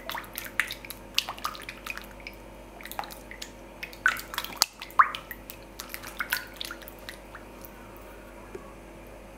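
Silicone spatula stirring milk, oil, egg and lumps of softened butter in a glass bowl: quick wet clicks and small splashes, loudest about halfway through, thinning out near the end.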